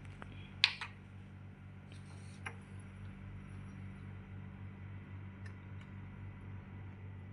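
Handling of a laboratory buffer bottle with a blue screw cap: one sharp click about half a second in and a softer click about two and a half seconds in, with a few faint ticks later, over a steady low electrical hum.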